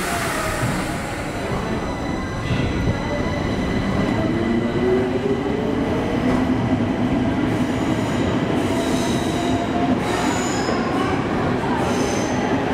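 Stockholm Metro train pulling out of the platform: its motor whine rises in pitch as it picks up speed over a steady rumble of wheels on rail. Brief high-pitched wheel squeals come near the end.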